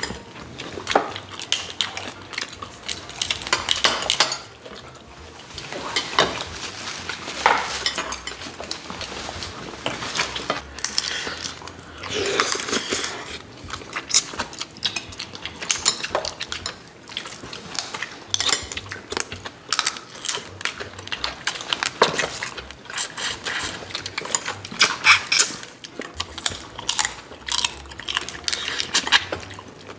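Eating at the table: utensils clinking on dishes among many irregular short clicks and smacks of chewing and sucking at soy-marinated raw crab.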